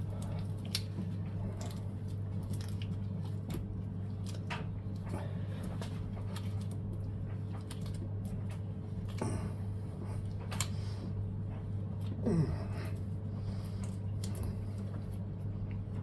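Scattered metallic clicks, small knocks and scrapes of tools and parts being handled while the front wheel axle of a Yamaha X-Max 125 scooter is worked out, with a brief squeak about twelve seconds in, over a steady low hum.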